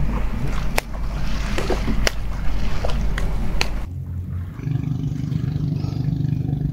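Noisy water-and-handling sounds with several sharp knocks, then after an abrupt change a steady low hum like a small motor running.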